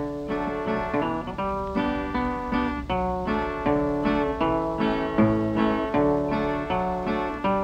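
Acoustic guitar playing an instrumental break on an early-1930s country blues record: a picked single-note melody over bass notes in a steady rhythm.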